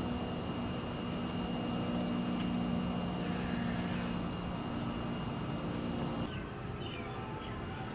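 Steady low engine drone from a passing vehicle or aircraft, which fades about six seconds in, with a thin high steady tone underneath.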